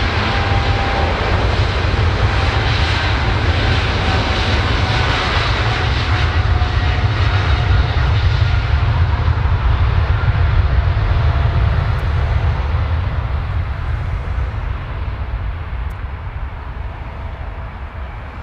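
Boeing 777F's twin GE90 turbofans at takeoff power, a loud steady jet roar with a deep rumble and thin whining tones that slowly drop in pitch as the freighter moves away, fading over the last few seconds.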